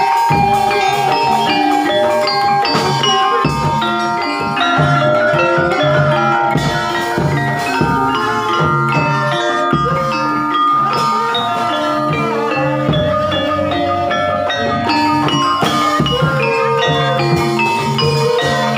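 Javanese gamelan music: mallet-struck pitched instruments playing busy, repeating melodic patterns over drum strokes, at a steady loud level.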